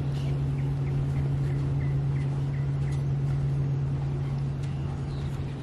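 A steady low hum, like a motor or engine running, with faint short high chirps repeating about twice a second.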